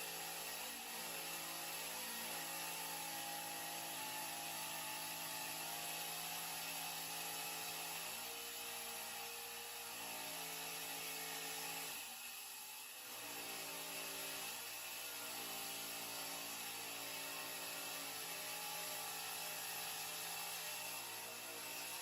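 Electric power tool motor running steadily, its pitch stepping up and down a few times, with a brief dip about twelve seconds in.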